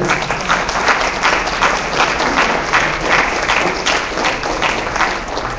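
Audience applauding: many people clapping together, easing off slightly near the end.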